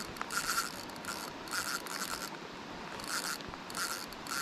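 Spinning reel buzzing in a series of short, high rasping bursts while a hooked fish is played on light line.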